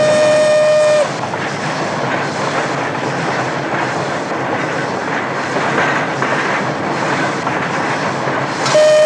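A train whistle holding one steady note cuts off about a second in, giving way to the rumble and clatter of the train running on the rails; the whistle sounds again near the end.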